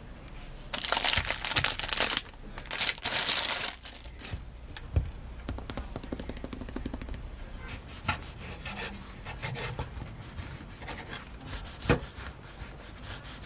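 Crusty whole-grain bread loaf crackling, first handled and pressed with loud crunchy crackles in the opening few seconds, then lighter scratchy crackles and clicks as a knife cuts through the crust.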